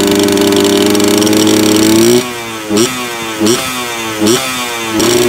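Yamaha 125ZR single-cylinder two-stroke engine revving through an aftermarket steel exhaust made to look stock. It is held at steady high revs for about two seconds, then falls away and is blipped four times in quick succession.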